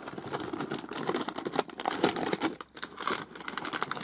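Plastic treat bag crinkling and rustling as it is handled, with many quick irregular clicks and crackles.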